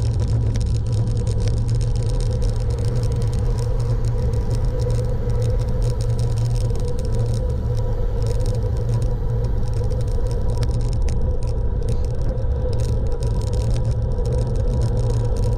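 Steady low rumble of wind and road noise from a moving vehicle on the road, with a faint constant hum and no change in pace.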